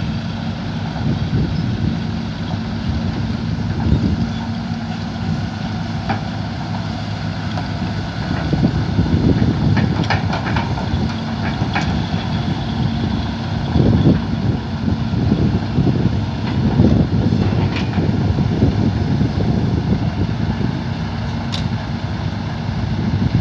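Excavator's diesel engine running steadily, with a few sharp knocks and clanks scattered through it.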